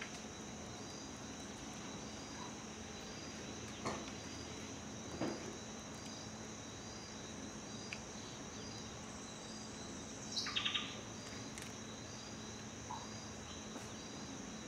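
Steady chorus of insects with a short high chirp repeating at an even pace. A few brief bird calls cut in, the most noticeable a quick stuttering call about ten seconds in.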